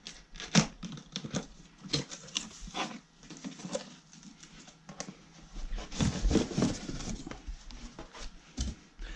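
Cardboard shipping box being opened by hand: tearing of tape and cardboard, rustling and crinkling of packing, and irregular knocks and scrapes, busiest near the end.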